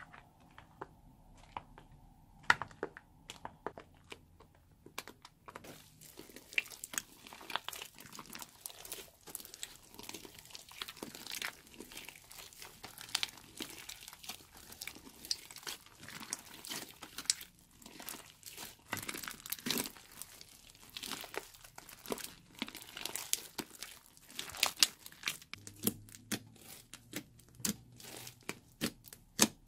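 Slime full of foam beads being stirred, stretched and squished, giving a run of sticky crackling clicks. The clicks are sparse at first and grow dense from about six seconds in.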